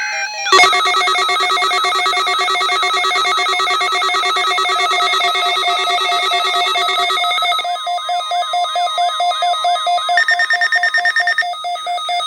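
Weather radio receivers sounding their warning alarms together for the weekly alarm test: many electronic warbling and beeping tones layered, starting abruptly about half a second in. Partway through some stop and the rest pulse in rapid beeps before they all cut off.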